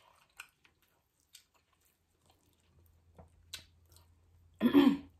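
Close-miked chewing with a few soft, wet mouth clicks, then a short vocal 'mm' near the end.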